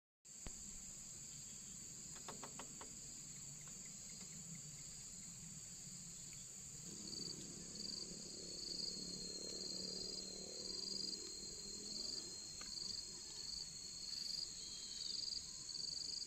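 Insects, crickets or similar, calling steadily in a high shrill drone, with a pulsing chirp a little more than once a second joining about seven seconds in. A faint low hum runs underneath.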